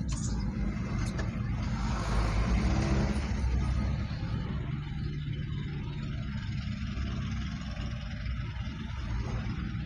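Road traffic noise from a car driving through city traffic: a steady low engine and tyre rumble. From about two to four seconds in, a louder swell of a nearby vehicle passing drops slightly in pitch as it goes by.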